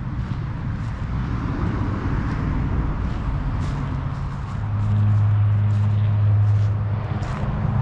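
A motor vehicle engine passing: a low rumble with a steady hum that swells about halfway through and eases near the end.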